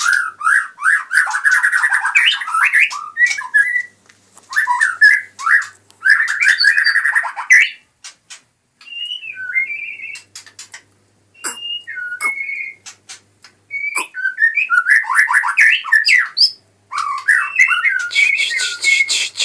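White-rumped shama (murai batu) singing in bursts of fast, varied warbling phrases with short pauses between them, with a few single whistled notes around the middle and sharp clicks mixed in.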